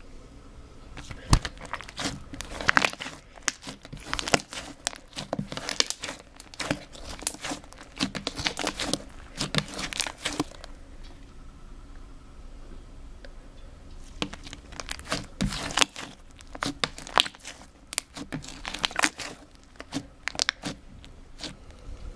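Foamy slime made with glue and shaving cream crackling and popping as it is stretched and sags, its air bubbles bursting in dense runs of small clicks. The crackling eases for a few seconds about halfway, then picks up again.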